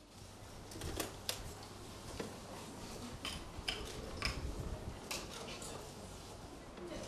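Scattered short, sharp clicks and snaps at irregular times over a faint steady low hum.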